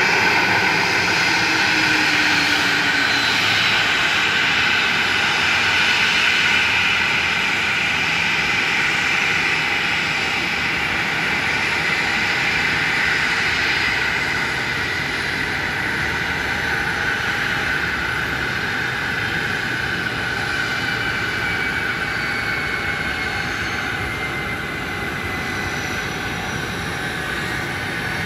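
Boeing 737 jet engines running at idle: a steady roar with a high whine, growing gradually a little quieter.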